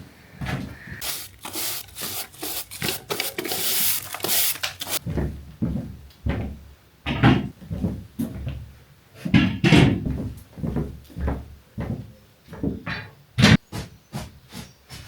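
Irregular wooden knocks and bumps with scraping and rubbing, as of boards and wooden fittings being handled. A longer stretch of rubbing or rustling comes in the first few seconds.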